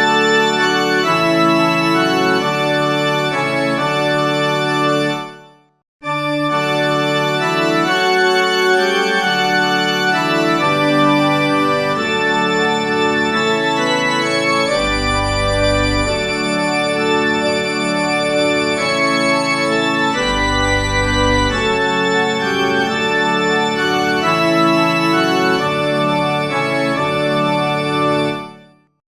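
Organ playing sustained chords. It breaks off briefly about five and a half seconds in and resumes, with deep pedal bass notes twice in the middle, and it dies away just before the end.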